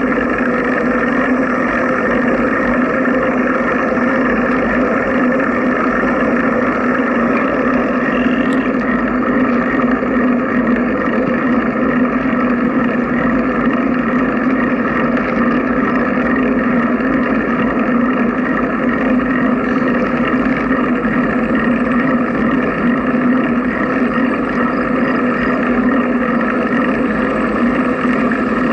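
Continuous wind and road noise on a bicycle-mounted camera while riding at a steady pace along a paved trail, a loud, unchanging drone.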